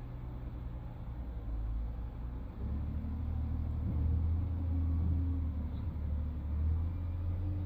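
Large excavator's diesel engine running with a steady low rumble, growing louder about three seconds in.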